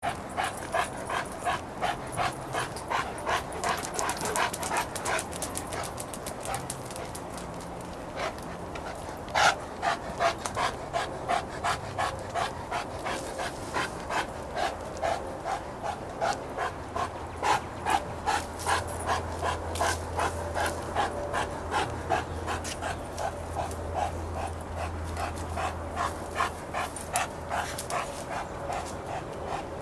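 A dog panting in a steady rhythm, about two breaths a second, with a brief pause about seven seconds in.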